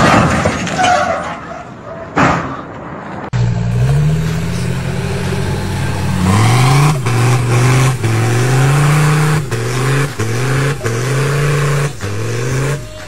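Off-road 4x4's engine revving hard in repeated rising surges as it churns through a flooded, muddy ditch. It is preceded for the first three seconds or so by a rougher, noisier vehicle sound.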